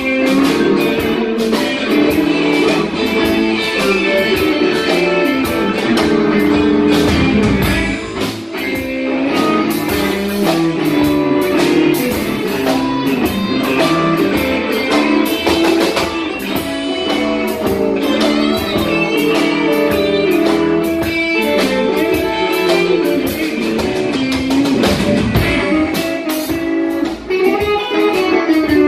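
Live blues band playing a song, with guitar to the fore over a steady beat.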